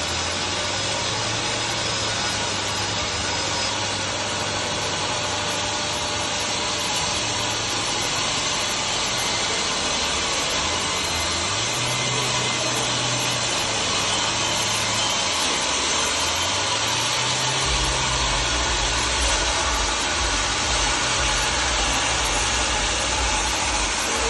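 Homemade mobile sawmill running and sawing wood: a steady, noisy cutting sound over a low engine hum that rises and falls in pitch several times.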